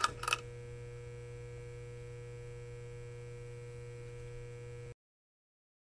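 Electrical hum of a neon-sign sound effect: a few quick clicks at the start, then a steady hum that cuts off suddenly just before the end.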